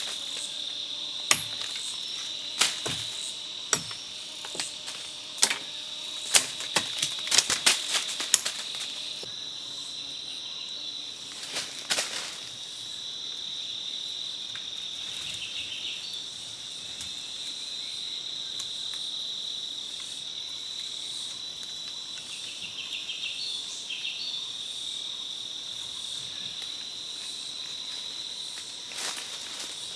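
A steady, high-pitched insect trill runs throughout. Over it come a quick series of sharp clicks and knocks in the first several seconds, another about twelve seconds in, and one more near the end.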